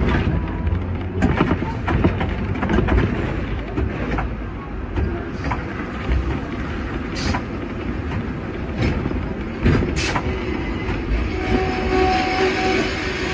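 Hong Kong double-decker tram, a sixth-generation teak-bodied car, running on street track with a steady low rumble and irregular sharp knocks from its wheels on the rails. A brief squeal comes near the end.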